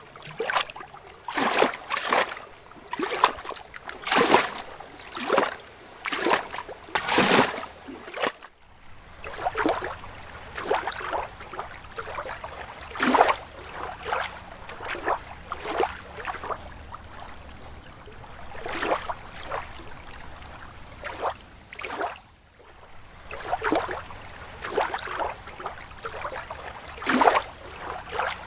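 Lake water lapping and splashing in small waves, in irregular slaps about one or two a second over a soft steady wash. There is a brief drop-out about eight seconds in.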